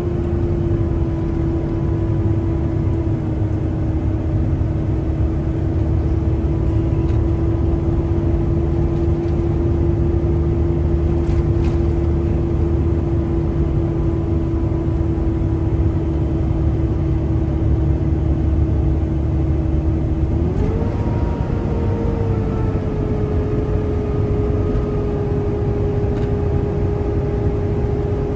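Pickup truck driving at steady speed, with a low road and engine rumble and a steady drone. The drone rises to a higher pitch about two-thirds of the way through and then holds there.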